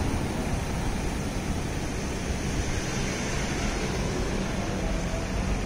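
Steady city street noise: road traffic as a continuous hum and hiss, with no separate events standing out.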